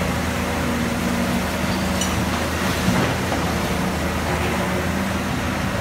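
Caterpillar 320B hydraulic excavator's diesel engine running steadily under load, with a hydraulic tone that shifts in pitch as the boom swings over to the dump truck. A single thump about three seconds in.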